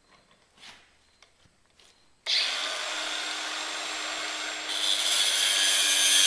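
A few faint taps, then a power grinder starts abruptly about two seconds in and runs with a steady motor whine. About halfway through it bites into metal, turning louder and harsher.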